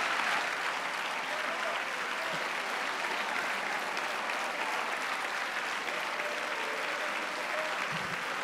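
A large crowd of parliamentary deputies applauding: dense, steady clapping that holds at an even level throughout.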